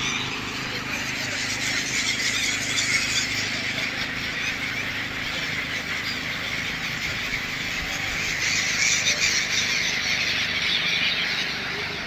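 A large flock of gulls calling all at once, a dense, unbroken chorus of high cries that grows a little louder near the end. A steady low hum runs beneath.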